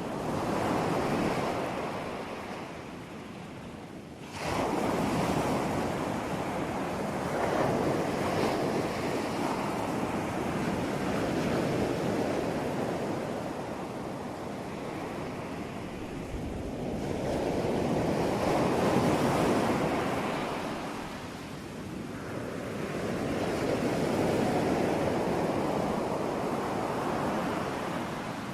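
Ocean surf: waves breaking and washing on a shore, the rushing noise swelling and easing in slow surges every several seconds. It jumps up abruptly about four seconds in.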